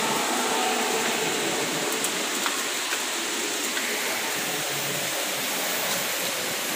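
Steady rush of flowing water, with a few faint clicks.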